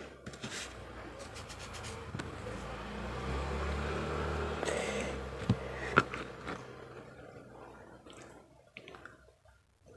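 Close-miked eating sounds: a spoon scraping and clinking against a plate of karedok and rice, with a couple of sharp clicks about five and six seconds in and softer clicks and scrapes after.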